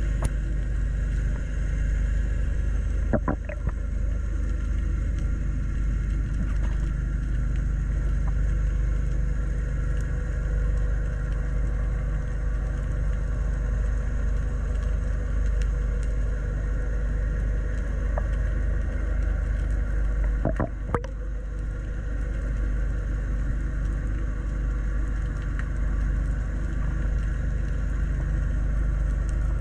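Steady low underwater rumble with a droning motor tone, typical of a boat engine heard through the water, broken by two brief knocks, one about three seconds in and one about twenty-one seconds in.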